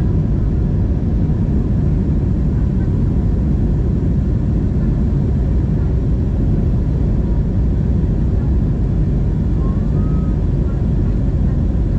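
Steady cabin noise inside an Airbus A321neo: a constant low rumble of engines and airflow with no change in level.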